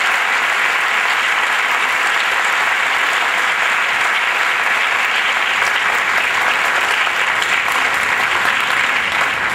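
Audience applauding steadily, a dense and even sound of many hands clapping without a break.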